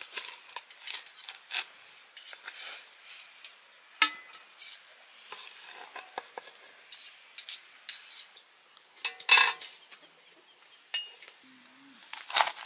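A small porcelain plate scraping and clinking against a black cooking pot as cooked rice is scooped out and tipped into an enamel dish. The scrapes and clinks come at irregular intervals, the loudest about nine seconds in.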